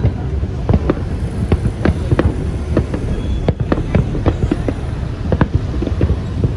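Fireworks going off in quick, irregular succession: many sharp bangs a second over a continuous low rumble.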